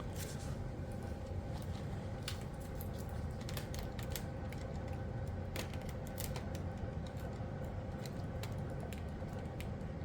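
Scattered light clicks and taps of small items and tools being handled and moved by hand, irregular and several a second at times, over a steady low hum.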